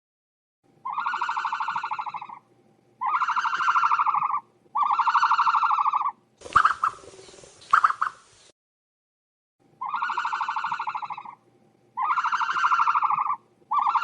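Sound effect billed as an ostrich call: long, buzzy honks of about a second and a half each, three in a row, then a short patch of sharp clicks and cracks about six seconds in, then three more honks.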